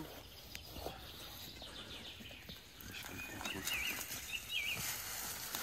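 Scratchy rubbing and handling noise as a metal dog tag is rubbed against cloth trousers, with a bird giving a short warbling call twice past the middle.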